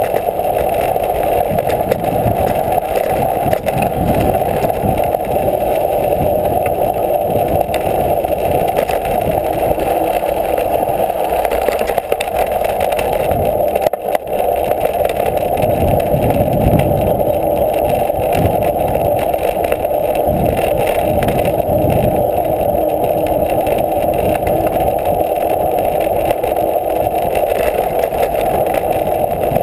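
Mountain bike riding on a rough dirt trail: steady wind rush over a bike-mounted camera's microphone, with the uneven rumble and rattle of knobby tyres rolling over dirt and stones.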